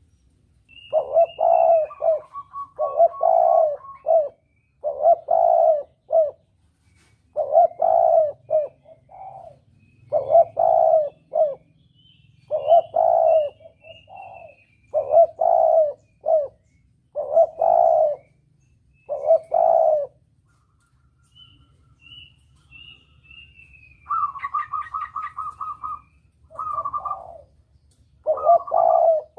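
Spotted dove (tekukur) cooing, the hunters' lure song, in short phrases repeated about every one to two seconds, with a pause after about twenty seconds. Faint high chirps from small birds sound above it, and a fast rattling call comes near the end.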